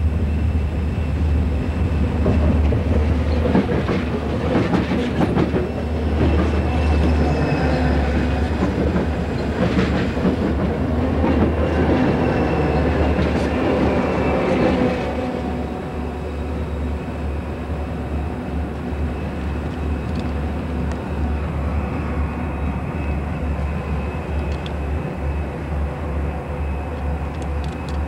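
A set of Southern Pacific diesel-electric freight locomotives running in a seven-unit helper set passes close by with a loud, heavy engine rumble and occasional knocks from the wheels on the rails. About 15 seconds in, the sound drops and carries on as a quieter steady rumble.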